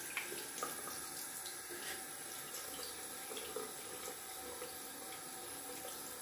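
Bathroom sink tap running steadily, with a few faint clicks.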